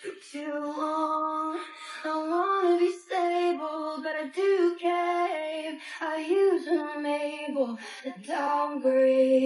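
A woman singing a melody in a series of held notes that step up and down between short phrases.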